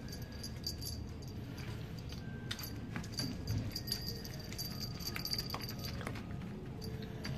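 Light metallic jingling in irregular shakes, busiest in the middle, as a Shiba Inu puppy tosses and worries a feather toy. Its paws and claws click and scrabble on a wooden floor.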